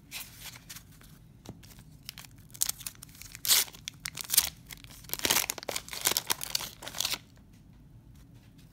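Paper wax-pack wrapper of a 1991 Donruss baseball card pack being torn open and crinkled. A run of quick rips and crackles starts a couple of seconds in and stops suddenly near the end.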